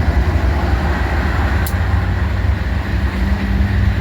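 Double-stack intermodal freight train rolling past close by: a loud, steady low rumble of wheels on rail, with one sharp click about a second and a half in.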